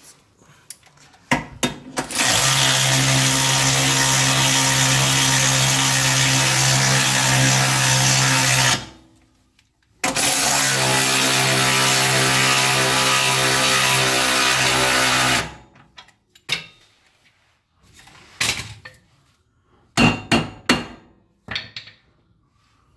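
Cordless power driver spinning a bolt into the rear differential mounting bracket in two long, steady runs of about six and five seconds, with a short pause between them. A few short metallic clicks and knocks follow as the parts are handled.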